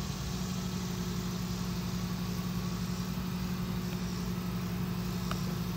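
Tow truck's engine idling steadily, a constant low hum.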